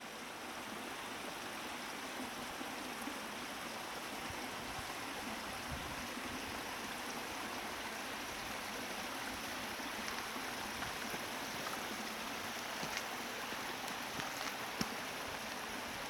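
Steady rushing of water from a small mountain waterfall and its stream, an even hiss that never lets up.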